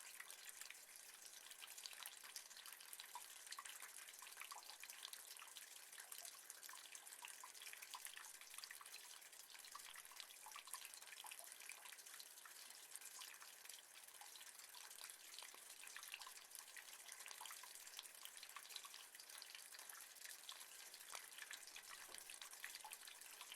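Rain falling on metal: a faint, steady hiss of many small drop ticks.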